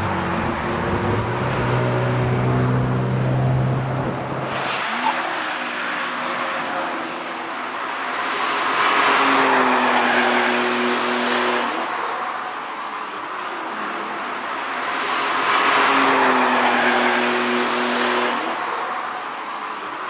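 Cars driven hard on a race circuit. For the first few seconds an engine runs steadily at high revs. After a sudden change about five seconds in, two cars sweep past one after the other, each growing loud with engine and tyre noise and then fading away.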